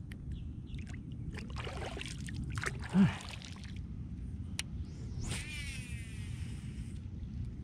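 Water sloshing and splashing beside a kayak, with a single loud knock about three seconds in, a sharp click, then a brief whirring sweep, over a steady low rumble.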